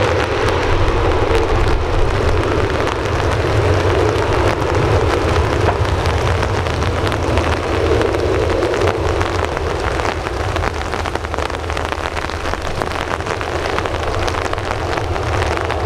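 Boeing 737-800's CFM56 jet engines running at low taxi power as the airliner turns on the runway, a steady rumble and hiss. Rain patters throughout as many small ticks.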